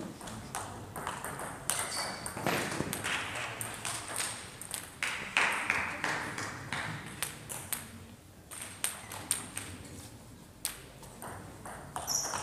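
Table tennis ball clicking against bats, the table and the floor in a sports hall: a string of sharp, irregularly spaced clicks.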